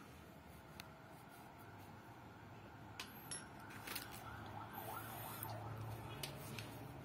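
Faint scattered clicks and light knocks from handling, about five in all, over a low steady background hum, with a faint wavering tone around the middle. No tool is running.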